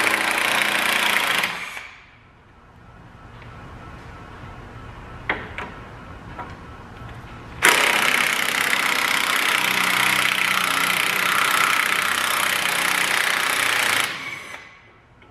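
Power wrench running in two bursts, a short one ending about a second and a half in and a longer one of about six seconds starting midway, spinning the sway bar link nuts off a truck's rear axle. A few light metal clinks come between the two runs.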